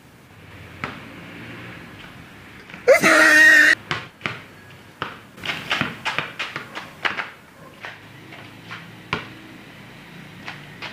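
A basketball dribbled on a concrete court: a run of sharp, quick bounces from about four seconds in, thinning out later. Just before the bounces begins, a loud, brief pitched sound stands out.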